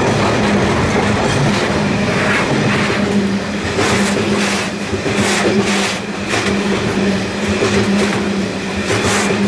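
Freight train of JNA open box wagons passing close by, its wheels rumbling and clattering over the rail joints, with a steady low hum underneath.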